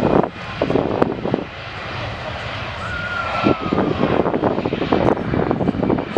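Jet airliner's engines at takeoff power during the takeoff roll, a steady rushing noise, with wind buffeting the microphone now and then.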